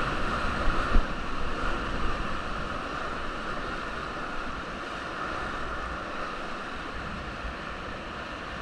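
Rushing whitewater river water around a raft, a steady noise that slowly eases, with a sharp knock about a second in.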